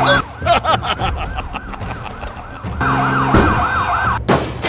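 Police car siren giving a quick rising-and-falling wail, about three cycles a second. It breaks off early for a couple of seconds of rapid clicking, then comes back and cuts off suddenly shortly before the end.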